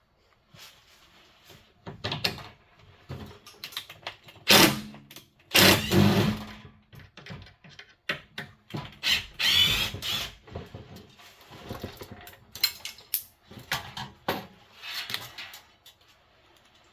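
Screws being backed out of a wall-mounted control panel with a screwdriver: scattered clicks, scrapes and knocks of metal on metal, with a few louder scraping bursts midway.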